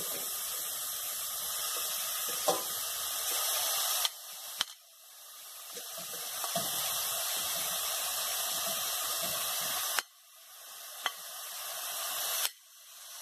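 Raw ground beef sizzling as it lands in hot olive oil and sautéed onion in a stainless steel pot, a steady hiss that drops away suddenly three times and builds back up. A few sharp clicks of the utensil scraping the meat from the glass bowl.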